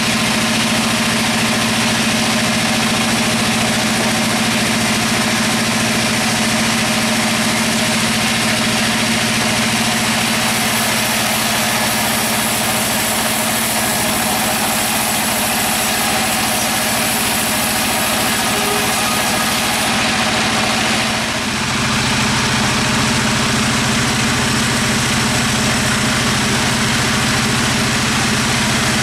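Sawmill machinery running steadily: a constant engine-like hum under a broad hiss. The hum changes abruptly about three-quarters of the way through.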